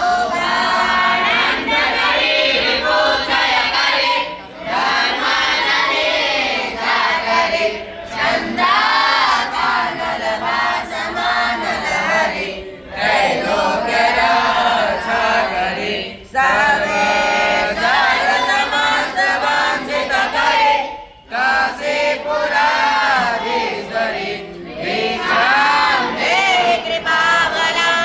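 A group of voices singing a chant together in unison, in phrases of about four seconds with short breaks between them.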